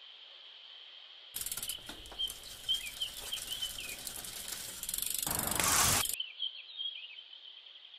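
Child's bicycle freewheel ratcheting as the bike rolls, swelling into a louder rush that cuts off sharply about six seconds in. Birds chirp faintly throughout.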